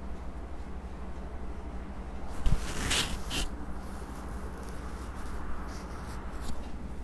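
A thump and a short scraping rattle about two and a half seconds in as a plastic ice-pop mould is set down among ice cubes on a plate, followed by a few small clicks, over a steady low hum.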